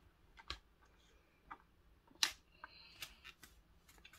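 A few soft, scattered taps and clicks of fingers on the paper pages of a picture book, over faint room hum.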